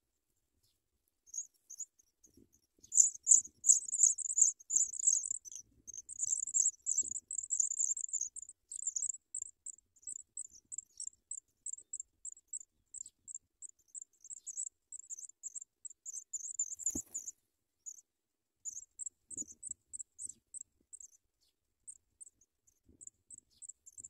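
African pipit nestlings begging with very high-pitched cheeping, dense and loudest for a few seconds while being fed, then a steady run of thin peeps about three to four a second. One soft knock partway through.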